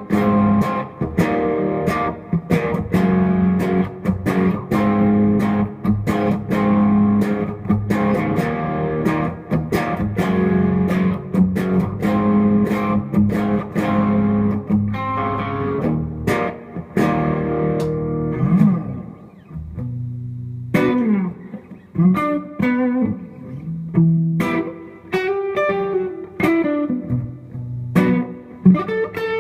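Gretsch Electromatic electric guitar played through a Fender Bandmaster amp with compressor, EP Booster, Walrus Audio Mayflower overdrive and Strymon Flint pedals on. Busy picked chords and riffs give way, after a brief break about two-thirds of the way through, to single-note lines with string bends.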